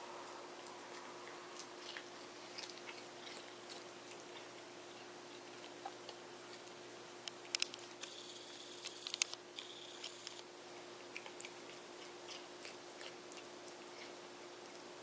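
A cat chewing and biting raw baby bok choy: irregular soft crunches and clicks, with a louder cluster about halfway through.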